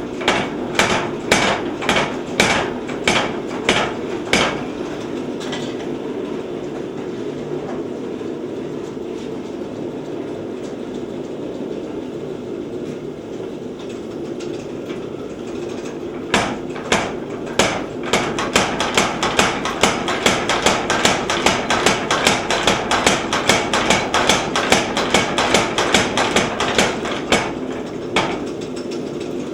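Little Giant 50-pound trip hammer pounding hot steel bar as it is drawn out to a taper. It starts with a short run of blows at about two a second, then gives way to a steady hum with no blows for about ten seconds. A longer, faster run of about four to five blows a second follows and stops near the end.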